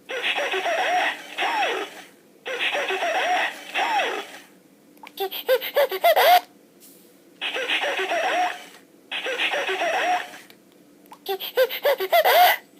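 Pete the Repeat Parrot talk-back toy playing giggling, laughter-like sounds back through its small speaker in a thin, pitched-up voice. Each playback comes right after a short burst of the live giggling it has just recorded, so the sound goes live burst, then toy echo, three times over.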